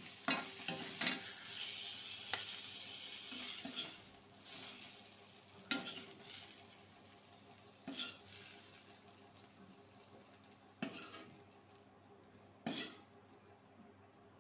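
A metal spatula scraping and knocking against an aluminium kadhai as fried pointed gourd pieces are scooped out, one stroke every second or two. Hot oil keeps sizzling for the first few seconds after the flame is off, then fades.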